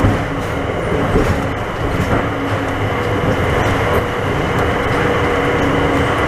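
Bombardier rubber-tyred automated people mover running along its guideway, heard from inside the car: a steady running rumble, with a faint steady whine that comes in about halfway.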